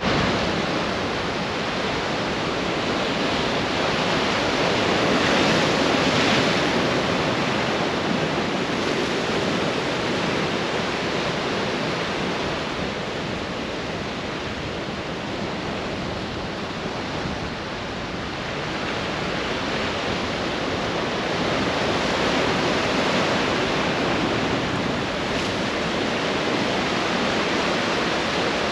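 Ocean surf breaking and washing up a beach: a continuous rush of waves that swells about five seconds in, eases off in the middle and builds again later.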